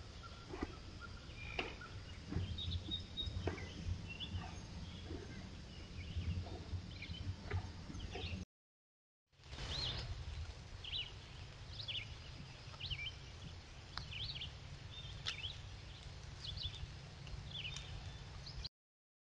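Woodland ambience picked up by a trail camera's microphone: scattered short bird chirps over a low steady rumble, with a few sharp clicks. The sound breaks off into silence for under a second about eight seconds in, then resumes.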